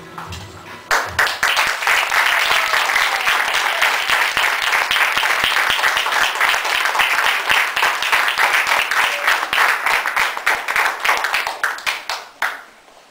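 Audience applauding: a crowd's clapping starts suddenly about a second in, holds steady, and dies away near the end.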